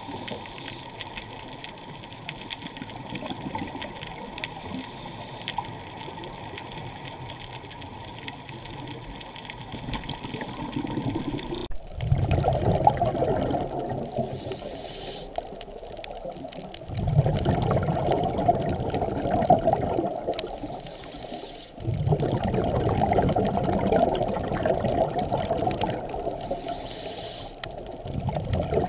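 Underwater sound of a scuba diver's exhaled bubbles pouring from the regulator, coming in long surges about every five seconds in the second half. Before that there is a quieter, steady water rush.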